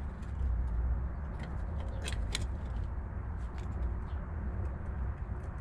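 Light metallic clicks and clinks of hand tools handled against a steel plate, with two sharper clicks about two seconds in, over a steady low rumble.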